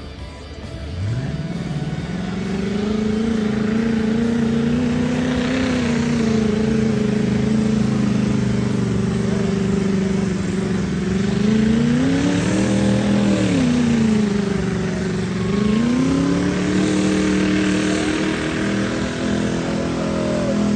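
A motor vehicle engine rises in pitch about a second in and runs steadily under load. In the second half it revs up and falls back, dips, then climbs again.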